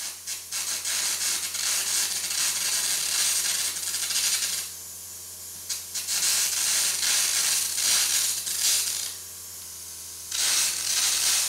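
Carbon arc air gouging with a 6.5 mm carbon rod on a 400 amp welder, cutting out the weld around a worn stub shaft. The arc crackles and the air jet hisses as it blows away molten metal, in three runs broken by short pauses about four and a half and nine seconds in, over a low steady hum.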